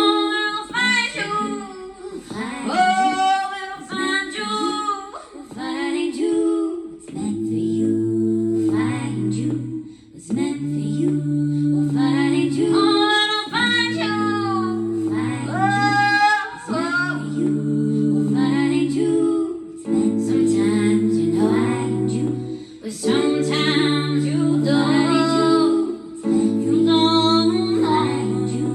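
A woman singing a wordless or unrecognised melody over a plucked guitar accompaniment, with steady low chord tones coming in about seven seconds in.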